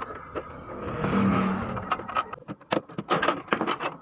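Hard plastic clicking and knocking as a printer's black plastic inner panel is pulled out and handled, a quick run of sharp clatters in the second half. A short rushing noise comes just before, about a second in.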